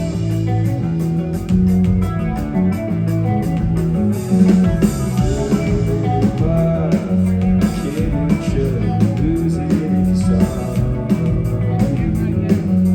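Live rock band playing an instrumental break: guitar lines with bending notes over bass and drums.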